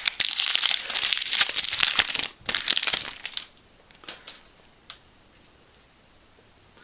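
Foil Yu-Gi-Oh booster pack wrapper crinkling as it is opened, for about three and a half seconds, followed by a few faint clicks.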